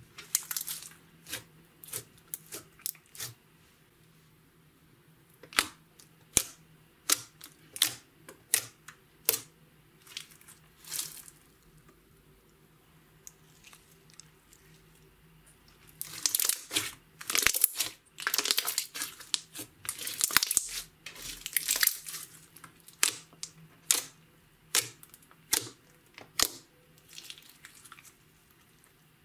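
Hands squeezing, poking and stretching a large lump of glitter slime: sharp, wet, sticky pops and clicks as fingers press in and pull free. They come in scattered bursts, almost stop about halfway through while the slime is drawn out, then run dense and crackling for several seconds before thinning out again.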